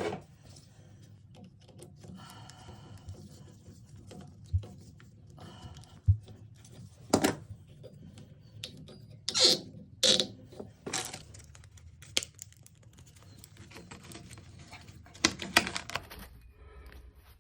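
Irregular clicks, knocks and short scraping noises of metal and plastic parts being handled while a toilet shut-off valve is worked on with a repair kit, with a few louder scrapes scattered through.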